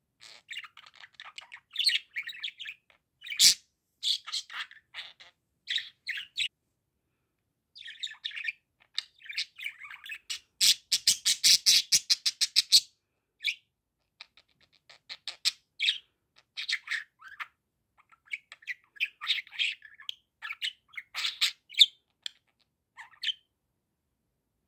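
A budgerigar warbling and chattering in short chirps and clicks, with a fast, loud run of clicking chatter about halfway through.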